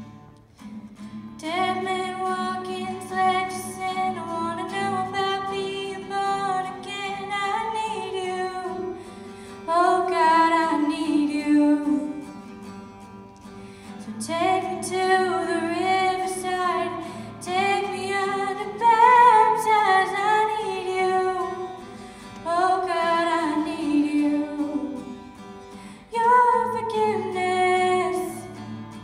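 A girl singing a song into a microphone, accompanied by a strummed acoustic guitar. Her sung lines come in phrases of a few seconds, with short gaps between them where the guitar carries on alone.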